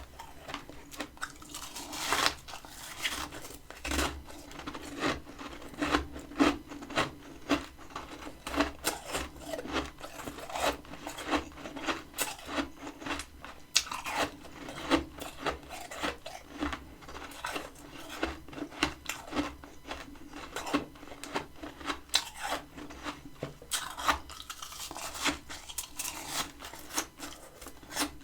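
Close-up crunching and chewing of freezer frost: a dense run of crisp crunches, several a second.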